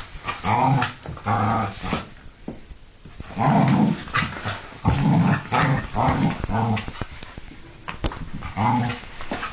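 Two dogs, a Staffordshire bull terrier and a Welsh collie–springer spaniel cross, play-fighting with repeated low play growls: about eight growls of half a second to a second each, with short pauses between.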